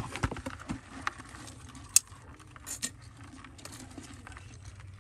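Scattered light clicks and clinks of long metal tongs tapping against a plastic basin of scorpions, with one sharp click about two seconds in.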